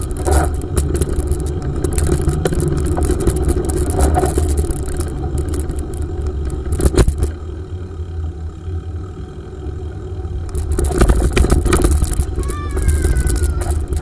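Wind buffeting a bicycle-mounted camera's microphone while riding, with the bike rattling and clattering over bumps in the path. There is a brief thin squeal near the end.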